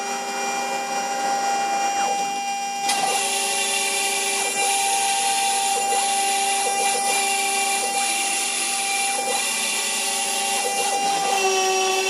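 CNC router spindle milling a wooden board: a steady whine with several fixed tones over a rasping cutting noise, which grows louder about three seconds in as the cutter bites harder.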